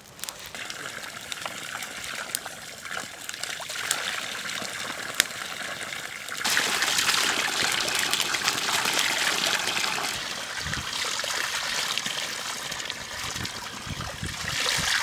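Water pouring from a plastic pipe and splashing onto wet ground and over plucked quail being rinsed under it. The sound jumps to a louder, steady gush about six seconds in, with a few sharp cracks in the first seconds before it.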